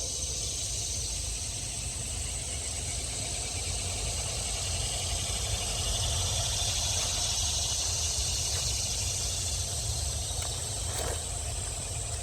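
Steady outdoor ambience: a constant high hiss over a low rumble, with a few faint clicks near the end.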